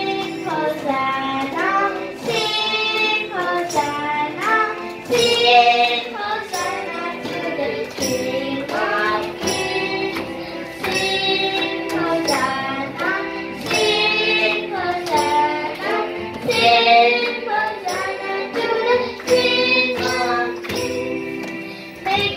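A young girl singing a song solo into a microphone, one continuous melody of held and gliding notes.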